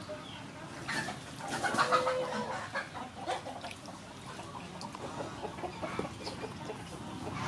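Water sloshing and splashing as small freshwater fish are rubbed and rinsed by hand in a metal bowl, with birds calling in the background.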